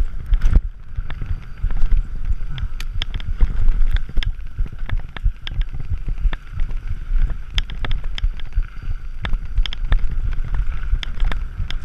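Scott Gambler downhill mountain bike ridden fast down a rough dirt trail: a steady low rumble of wind and tyres on the camera microphone, with frequent sharp clacks and rattles from the bike as it hits bumps.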